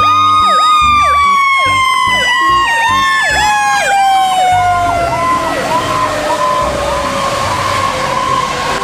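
Fire engine sirens: a fast yelping siren repeating about three times a second over a second, long siren tone that slides slowly down in pitch. A hiss, typical of tyres on a wet road, grows in the second half.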